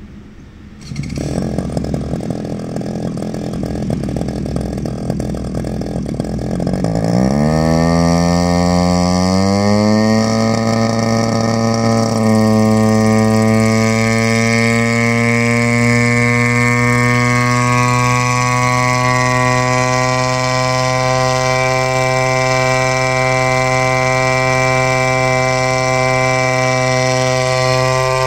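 Unmanned agricultural spraying helicopter starting up: its small engine catches about a second in, then the rotor spools up with a rising pitch for several seconds and settles into a steady, loud drone at flying speed as it lifts off.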